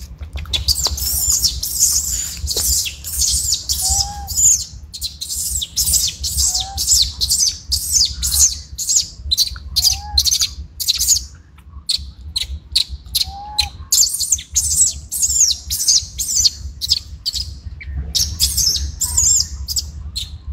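Small birds chirping rapidly and continuously in high-pitched, twittering runs, with a brief lull about halfway through. A short, lower, rising-and-falling note repeats about every three seconds, over a steady low rumble.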